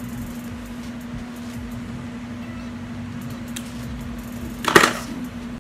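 A steady low hum over faint room noise, with one short, sharp clack a little before the end.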